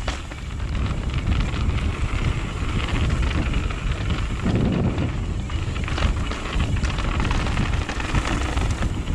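Mountain bike ridden fast downhill: wind buffeting the microphone and tyre rumble on the dirt, with scattered knocks and rattles from the bike over bumps.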